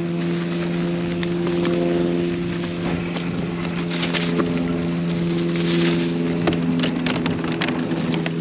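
Mountain bike riding fast down a dirt trail: a steady pitched buzz, typical of the rear hub freewheeling while coasting, that drifts slightly in pitch with speed, under scattered knocks and rattles from the bike over the ground, with wind on the microphone.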